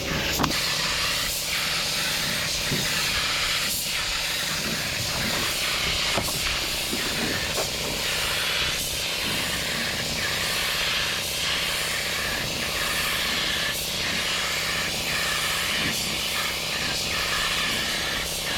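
Steady hiss of compressed air from an air tool.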